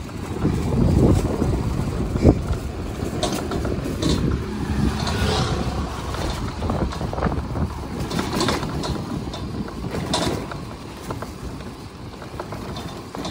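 Motor scooter riding along a street: a steady low rumble of engine and wind on the microphone, with a few knocks and rattles, the loudest about two seconds in.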